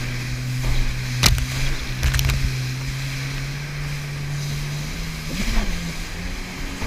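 Personal watercraft engine running at a steady note that rises in pitch about five seconds in, with wind on the microphone. A sharp knock comes about a second in and a couple more around two seconds in.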